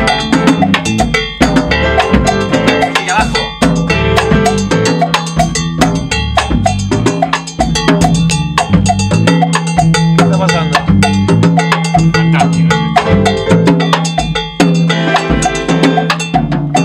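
Afro-Cuban jazz trio playing live at a sound check: a busy drum kit with dense cymbal and snare hits over a low held note.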